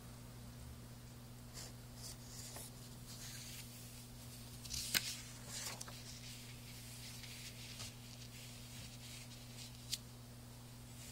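Paper flyers rustling as they are handled and shifted, with a sharp click about halfway through and a smaller one near the end, over a faint steady low hum.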